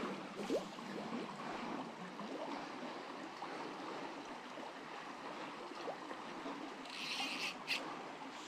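Stream water running and trickling steadily. Near the end comes a short, brighter rush of noise, twice in quick succession.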